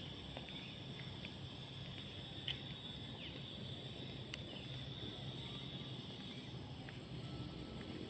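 Outdoor ambience: a steady high insect drone over a low, steady hum, with a few faint short ticks.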